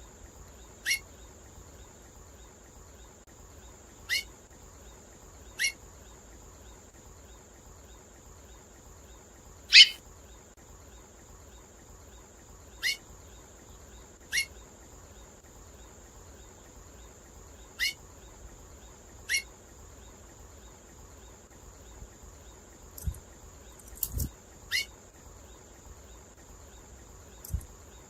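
Female seedeater (curió or coleiro type finch) in breeding condition giving short, sharp upward-sweeping call notes, about a dozen spaced one to a few seconds apart, often in pairs, the loudest about ten seconds in. A steady high-pitched whine runs underneath, with a few soft low thumps near the end.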